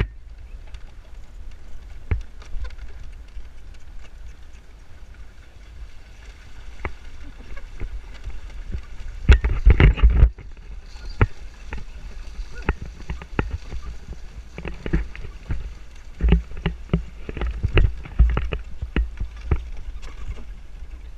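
Vehicle ride noise: a steady low rumble with scattered knocks and rattles, and a louder rumbling stretch about nine seconds in.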